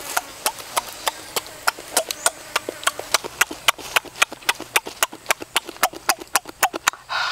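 Rapid, sharp lip-smacking and mouth clicks from eating, about six smacks a second, with a short noisy burst near the end.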